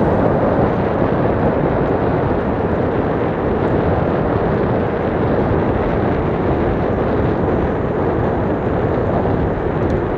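Steady wind rush on the microphone with road noise from a mountain bike ride.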